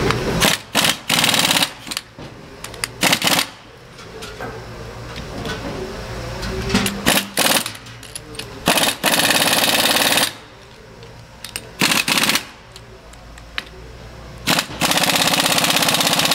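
Impact wrench hammering in about a dozen short bursts of rapid blows, the longest about a second, as it runs down and tightens the bonnet nuts on a gate valve.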